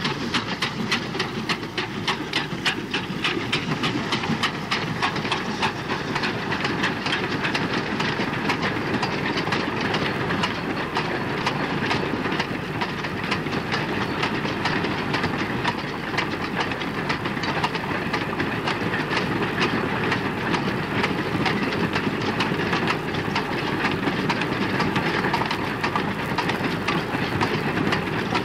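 A long train of coal wagons rolling past behind a steam locomotive, the wheels clattering over the rail joints in a steady, rapid clicking.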